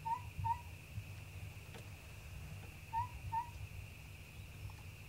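A bird calling in the bush: a hooting call of two short notes in quick succession, heard twice, about three seconds apart, over a faint steady high hiss.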